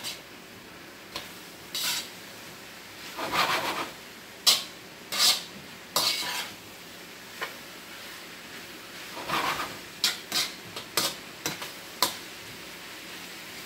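Metal spatula and fork scraping and clacking against a wok as beef and vegetables are stir-fried, in irregular strokes, some sharp and some longer rasps. The food sizzles underneath.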